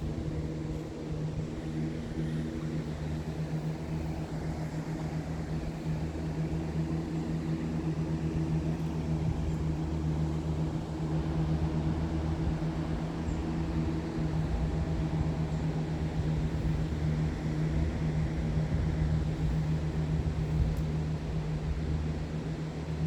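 Petrol lawn mower engine running steadily with an even drone, over the rush of river water.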